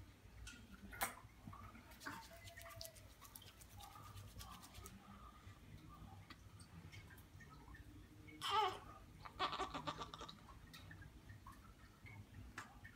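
Soft rustling and clicking of a towel and baby clothes being handled as a newborn is dressed, with faint baby sounds. A brief louder sound comes about eight and a half seconds in, followed by a second of crackly rustling.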